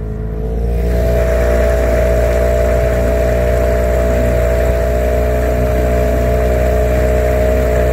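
Boat outboard motor running under way, picking up speed in the first second and then holding a steady pitch, with the wash of water churning behind the stern.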